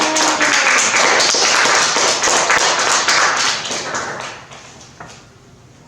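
A classroom of students clapping in applause, dying away about four to five seconds in.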